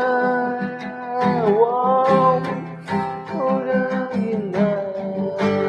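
Song playing: acoustic guitar strumming a steady rhythm under a long held melody line that dips in pitch and swings back, twice.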